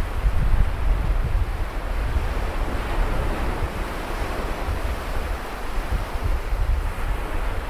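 Sea surf washing on a beach, a steady hiss of waves with gusty wind rumbling on the microphone.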